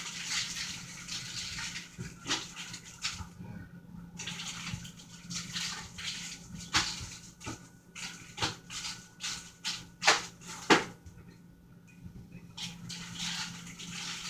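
Groceries being handled in a kitchen: a rustling hiss of packaging, with a run of knocks and clicks as items are set down and moved, the two loudest knocks close together past the middle.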